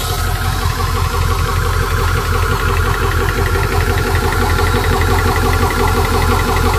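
VEVOR 4500 psi portable PCP compressor and its cooling fans running steadily under load, pumping air into an air rifle's reservoir as it nears its 250 bar fill.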